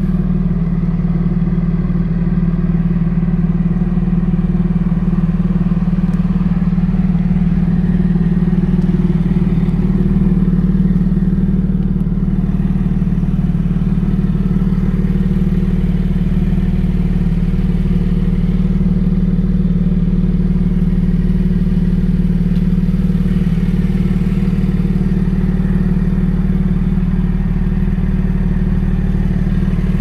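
Porsche 718 Cayman GT4's 4.0-litre naturally aspirated flat-six idling steadily through an Akrapovic link pipe and Evolution exhaust.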